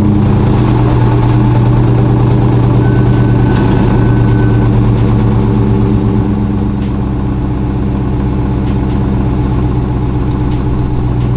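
2017 Dodge Challenger R/T's 5.7-litre Hemi V8 idling steadily just after starting, the engine already warm, through its stock exhaust with the mid mufflers still in place.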